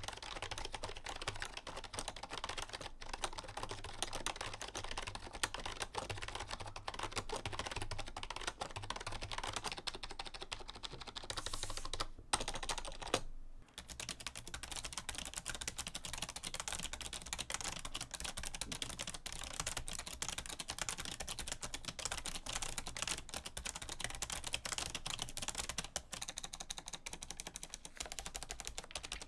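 Continuous fast typing on a Razer Cynosa membrane keyboard: a dense stream of keystrokes. After a brief break about thirteen seconds in, the typing continues on a Razer Ornata mecha-membrane keyboard.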